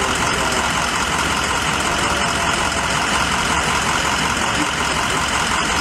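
A steady, unbroken rumble and hiss of an idling engine.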